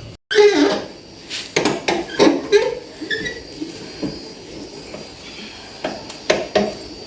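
Metal clanks and clinks of tools and wheel parts being handled while a car tyre is changed. There are several sharp strikes, a cluster about a second or two in and another near the end.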